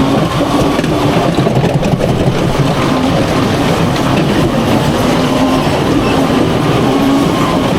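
Small fairground racing car driving around its track: a steady rumbling motor noise with a faint wavering whine.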